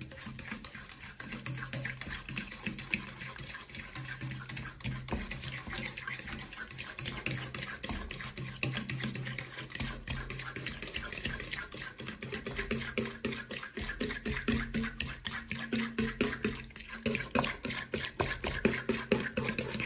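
A fork beating melted butter and sugar in a stainless steel mixing bowl: rapid, steady scraping and clinking of the tines against the metal through the wet mixture, creaming it together. A faint low hum runs underneath.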